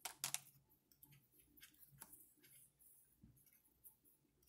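Faint scattered clicks and taps of small plastic and metal RC car parts being handled, with a quick cluster of louder clicks right at the start.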